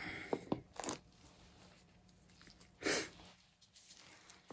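Quiet close-up sounds of a person: a short breathy hiss at the start and another about three seconds in, with a few light clicks of handling in the first second.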